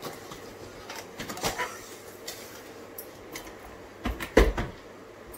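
A metal spatula clinks lightly in an aluminium kadhai of boiling sugar syrup. About four seconds in come a loud knock and heavy thuds.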